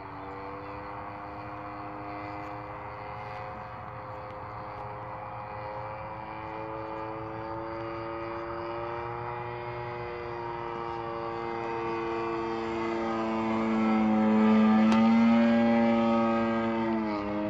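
Radio-controlled aerobatic model airplane's motor and propeller droning in flight, the pitch shifting slowly as it manoeuvres. It grows louder as the plane passes closer near the end, then the pitch drops sharply.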